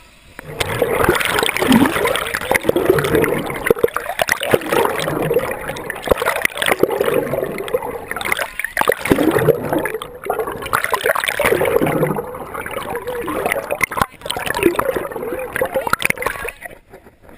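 Water splashing and sloshing, with indistinct voices underneath; it starts suddenly about half a second in and stops just before the end.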